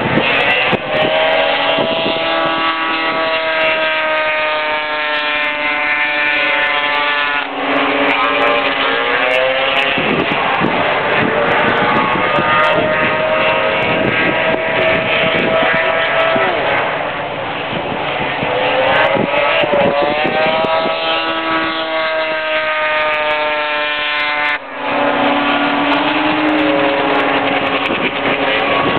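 Several vintage 340-class two-stroke racing snowmobiles running hard, their engines whining and rising and falling in pitch as the sleds accelerate, lift and pass. The level dips briefly a few seconds before the end.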